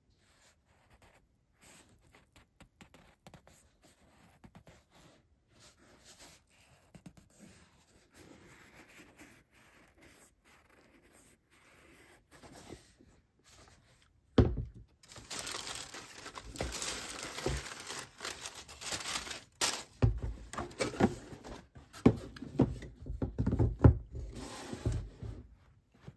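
Soft rubbing and light ticks as leather sneakers are handled, then, about halfway through, white tissue paper in a cardboard shoebox rustling and crinkling loudly as it is pulled about, with a few dull thumps from the box and shoes.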